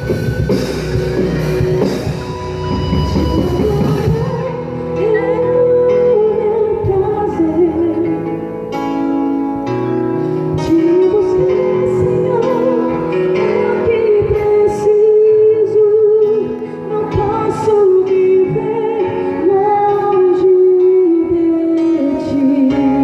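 Live worship band playing: drums and cymbals drop out about four seconds in, leaving a softer passage with a sustained melody line over bass and chords.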